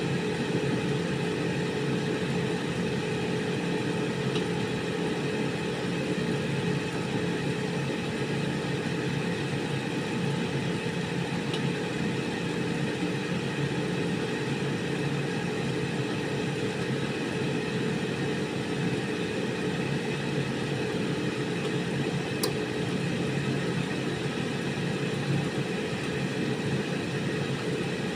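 Air fryer running: the steady whir and hum of its fan motor, constant in pitch and level.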